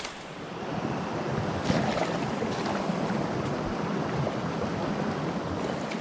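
Water of a small rocky brook rushing over stones close to the microphone, a steady wash of noise that grows louder about a second in.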